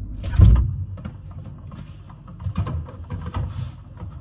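Camera handling noise: a loud thump about half a second in, then scattered clicks, knocks and rustling as the camera is set up and adjusted.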